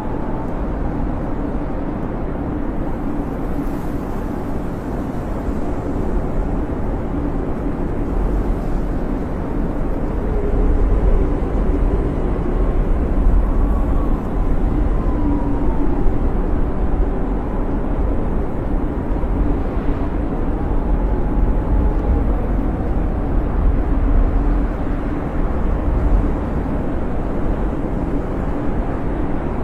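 Snowstorm wind blowing in a steady low rumble, with a faint whistling howl that slowly rises and falls in pitch, swelling a little louder partway through.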